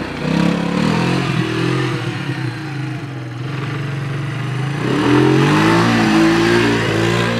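ATV engine revving while the quad is ridden, its pitch rising and falling as the throttle is opened and eased, and climbing again about five seconds in.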